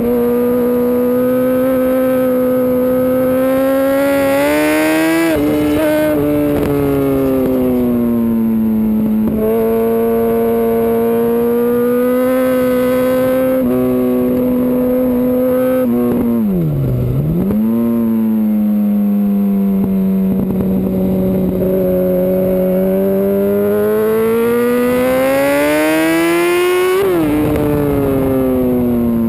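A 2005 Yamaha R1's inline-four engine pulling hard on track, its pitch climbing and falling as the rider works the throttle and gears. There is a sudden drop in revs about five seconds in, a deep dip and recovery a little over halfway, and a long steady climb ending in a sharp drop near the end.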